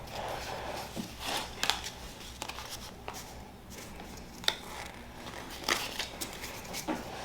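Quiet rustling and scattered small clicks of Pokémon trading cards and a booster-pack wrapper being handled.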